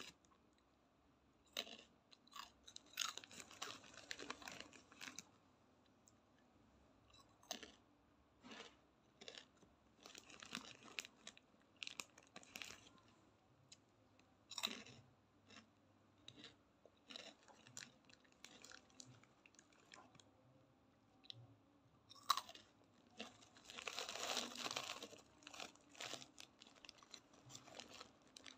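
Close-up crunching and chewing of a crisp fried dried-macaroni snack (makaroni kering), eaten piece by piece: irregular crisp crunches with quiet gaps between bites. A longer, louder rustling stretch comes near the end as a hand goes into the thin plastic snack bag.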